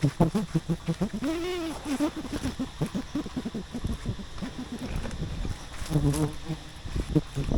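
Wild honey bees buzzing close around the microphone. The buzz keeps swooping up and down in pitch as single bees fly past.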